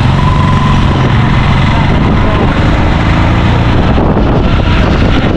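A vehicle engine running steadily close by, a low hum under a loud, even wash of traffic noise and wind on the microphone.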